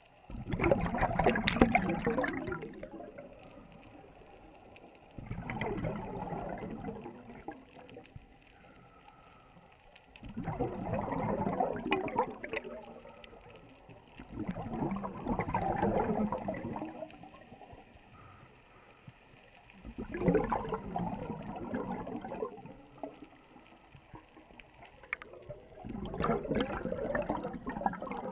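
Scuba diver's regulator exhalations heard underwater: six bubbling, gurgling bursts of exhaust bubbles, each two to three seconds long and about five seconds apart, with quiet inhalations between them.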